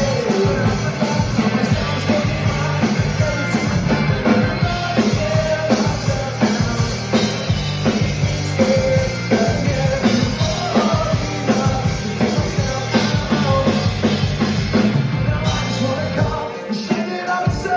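Live rock band playing loud, with a drum kit and bass, and a voice singing over it. Near the end the low end drops away and the sound briefly gets thinner and quieter.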